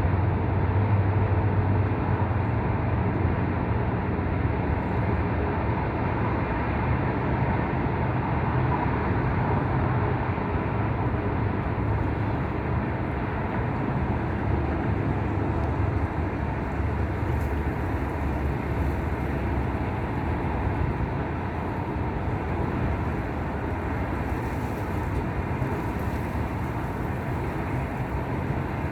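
Steady wind, a continuous rushing with a low rumble that stays level throughout.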